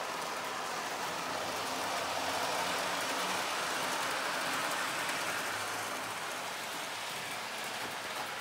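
Model freight train running along its track, its wheels and motor making a steady rolling whir. The whir is a little louder midway through as the train passes nearest, then eases slightly as it runs off.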